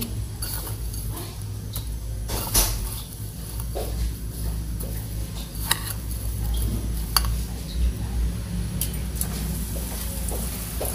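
Metal spoon scraping and clinking against ceramic plates while meatball nuggets are rolled in breadcrumbs, a few sharp clinks among softer scrapes, over a steady low hum.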